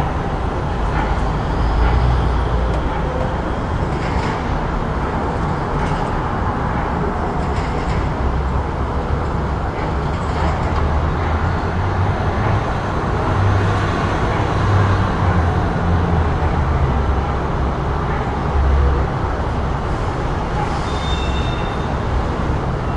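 Busy city street ambience: a steady wash of traffic noise with a deep, slowly swelling rumble of passing vehicles. A short faint high-pitched squeak comes near the end.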